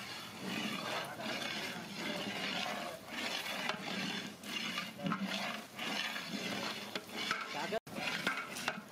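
Long-handled metal ladle stirring mutton gravy in a large aluminium cooking pot, scraping the pot in repeated strokes.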